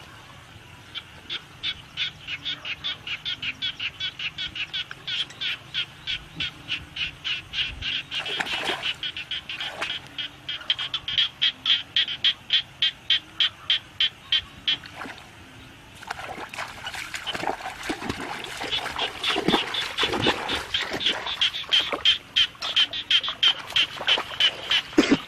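Frogs calling: a fast run of short, high croaks, about four a second, that breaks off briefly about fifteen seconds in and then resumes. Water splashes now and then, and more often later on, as hands work in shallow muddy water.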